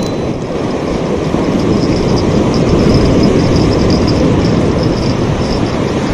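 Steady rush of surf breaking on the beach, mixed with wind on the microphone, swelling slightly about halfway through.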